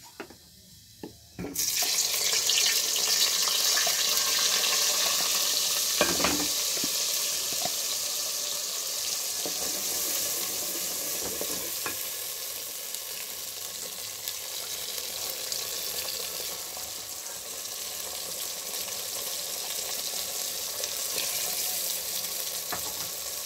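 Ground onion-tomato paste dropped into hot oil in a metal kadhai about a second and a half in: a loud sizzle starts at once, then the paste keeps frying with a steady sizzle, easing a little, as a spoon stirs it.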